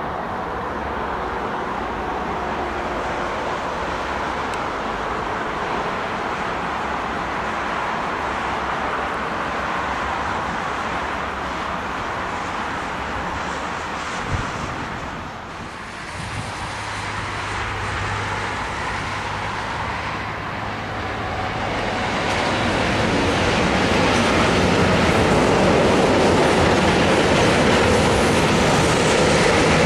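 A train running past on the rail line, its wheels rolling over the track. A single sharp knock comes about halfway, and the sound grows louder over the last third.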